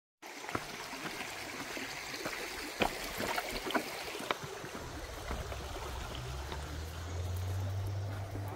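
A stream rushing steadily, with scattered sharp clicks over it. A low hum comes in about halfway through.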